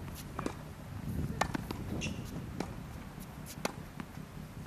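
Tennis ball being struck by rackets and bouncing on a hard court during a rally: sharp pops about once a second.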